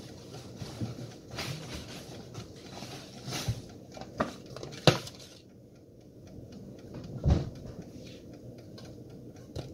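Scattered light knocks and clicks of kitchen handling as a paper plate is set on the counter and the air fryer basket is brought over, with a heavier thump about seven seconds in.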